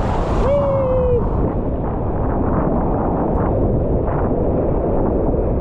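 Loud, steady rushing of whitewater mixed with wind buffeting the microphone. A brief flat pitched call sounds about half a second in.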